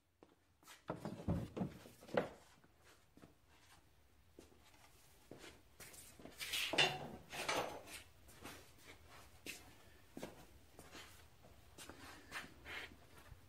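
Faint, scattered knocks, clicks and rustles of things being handled, with a few louder clusters of clatter.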